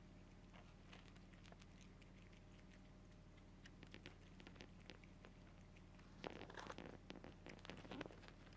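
Two cats crunching dry kibble, a quiet patter of small crisp crunches that grows denser and louder from about six seconds in. A steady low hum lies underneath.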